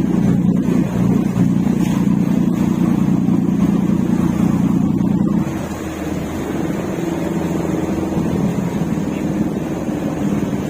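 A boat's engine running steadily in a low drone. It eases off and becomes quieter about halfway through, then keeps running.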